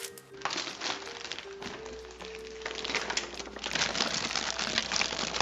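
Background music with a simple melody. From about half a second in, a dense crackling noise joins it and grows louder toward the end.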